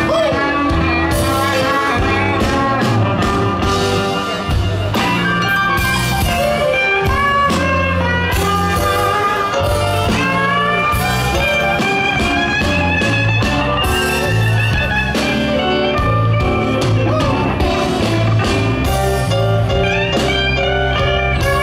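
Live electric blues band playing an instrumental passage: an amplified harmonica plays long held, bending notes over electric guitar, bass and drums.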